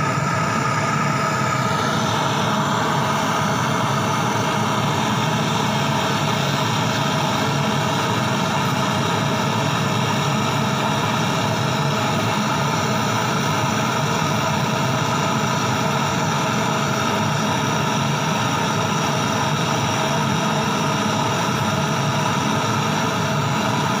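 Gas brazing torch burning with a steady, loud rushing noise while it heats a copper refrigerant line joint at a fridge compressor for brazing.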